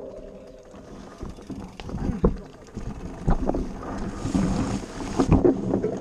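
Fat-tyre mountain bike jolting over a rocky trail, heard from a camera mounted on the bike: repeated knocks and thuds as the tyres hit rocks and roots, with rattling of the bike and wind on the microphone. A brief hiss comes about four seconds in.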